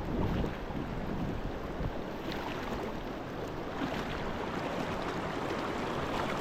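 Steady rushing noise of a mountain river, mixed with wind buffeting the microphone.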